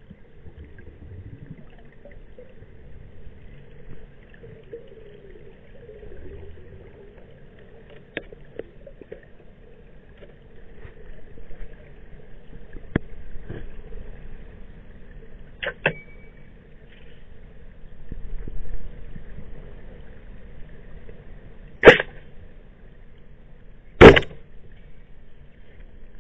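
Wooden speargun fired underwater at a target: two loud sharp snaps about two seconds apart near the end, over a faint underwater hiss with a few small clicks earlier on.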